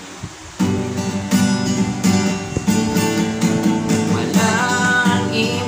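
Acoustic guitar strummed in steady chords, starting about half a second in as a song intro. A man's singing voice comes in near the end.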